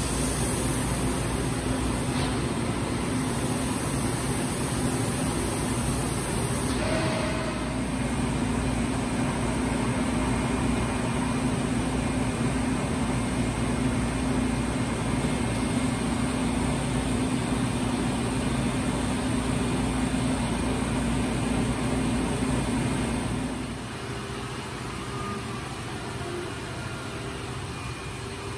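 Steady drone of running shop machinery with a constant low hum; it drops noticeably in level about 23 seconds in.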